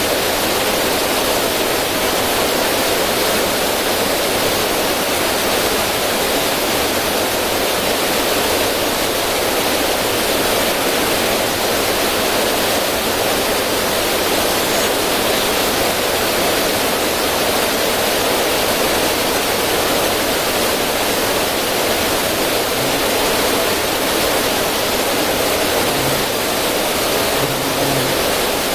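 River current rushing steadily over rocks through a small cascade, an even, continuous wash of water noise.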